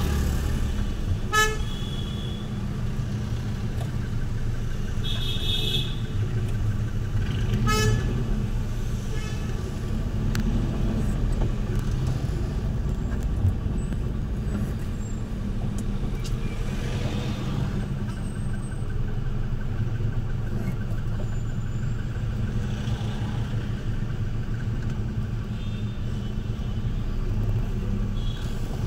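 Inside a car in slow, heavy city traffic: a steady low rumble of engine and road noise, with short car horn toots from the surrounding traffic a few times.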